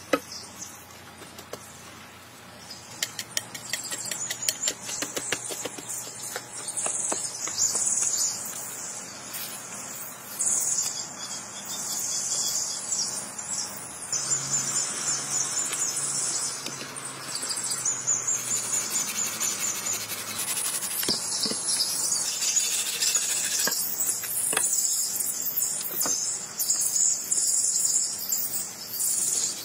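Outdoor forest ambience: a high-pitched insect chorus that swells and fades, with birds chirping. Scattered knocks and scrapes of hand work with a digging tool and wooden poles sound through it.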